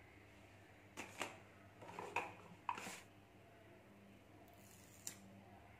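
Faint clicks and rustles from hands handling a smartwatch's charging cable and the watch, clustered between about one and three seconds in, with one more near the end, over quiet room tone.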